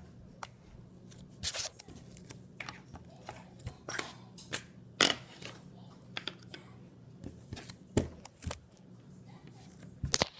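Orange slime being squeezed and pressed by hand on a tabletop, giving irregular sharp clicks and pops, the loudest about five seconds in and again near eight seconds.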